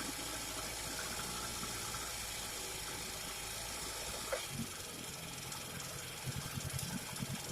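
Old Sea Bee 5 outboard motor running roughly over a steady hiss; about four seconds in a click sounds and the running changes, and near the end it fires in irregular low putts.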